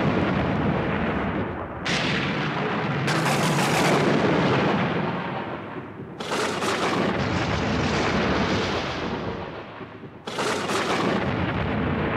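Thunder-crack sound effects: four sharp cracks, about 2, 3, 6 and 10 seconds in, each fading away over a second or more.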